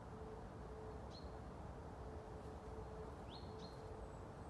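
Faint short bird chirps, each a quick falling flick settling on a brief level note: one about a second in, then two in quick succession a little past three seconds. They sound over a steady faint hum and low background noise.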